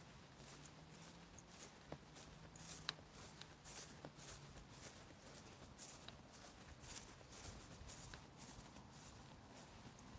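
Faint footsteps of a walker on mown grass, soft swishing steps about two a second, with a faint low hum in the first half.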